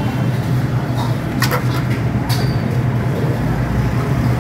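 Yezdi Roadking's 250 cc two-stroke single-cylinder engine idling steadily, with a couple of short sharp clicks partway through.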